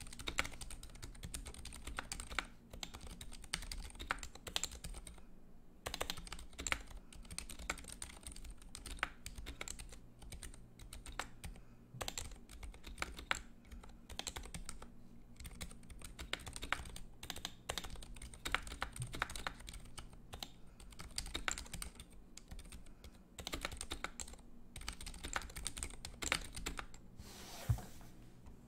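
Steady typing on a custom 65% mechanical keyboard with lubed ZealPC Zilent 67g silent tactile switches, a brass plate, an acrylic Tofu65 case, HyperX Pudding keycaps and rubber O-rings: a quick, irregular run of soft key presses, with brief lulls about five seconds in and near the end.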